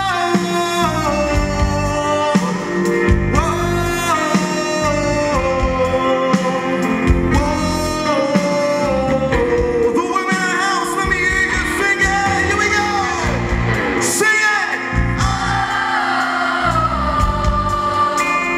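Live rock band performance: a male lead vocalist sings long held notes that fall in pitch, over strummed acoustic and electric guitars.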